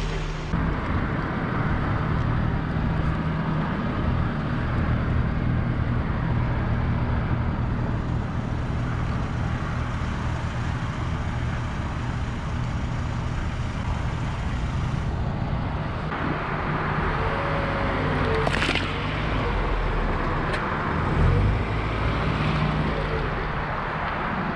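A car engine running slowly and tyres rolling over asphalt. A sharp crack comes about three-quarters of the way through as an egg is crushed under the tyre, followed shortly by a low thump.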